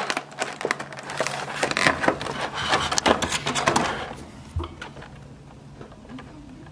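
Clear plastic blister packaging crinkling and crackling as it is handled to free an action figure. The crackle is dense for about four seconds, then dies down to a few faint ticks.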